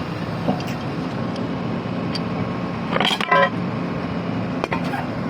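Excavator diesel engine running steadily, a low hum with a few steady tones, with a short higher-pitched sound about three seconds in.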